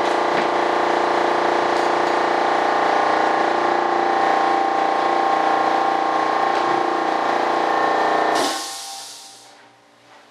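A shop machine's electric motor running with a steady, even hum, shutting off about eight and a half seconds in, followed by about a second of hissing air.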